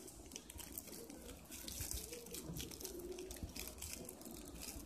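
Plastic wrapper of a small snack packet crinkling and rustling in the hands as it is opened, a dense run of small crackles.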